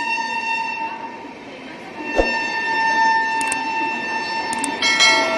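Passenger coaches of a train rolling past with a sustained high-pitched wheel squeal, which fades about a second in and comes back. A single sharp clank comes about two seconds in, and a second, differently pitched squeal starts near the end.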